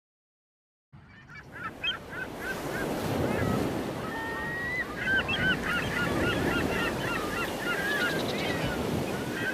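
A flock of birds calling, many short pitched calls overlapping, starting about a second in over a steady low background noise.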